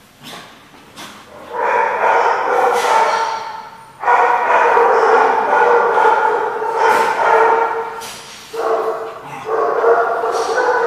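Dogs growling and grumbling in long, rough stretches as they play-wrestle.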